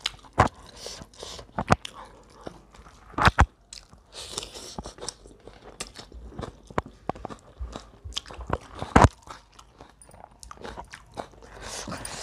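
Close-miked chewing and biting from two people eating a meal of rice, chickpea-potato gravy and fried chicken by hand: irregular sharp clicks and crunches, the loudest about half a second in, near three and a half seconds and about nine seconds in.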